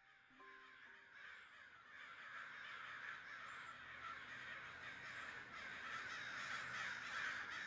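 Many overlapping bird calls massed together into a dense chorus that grows slowly louder, while the last notes of music die away in the first second.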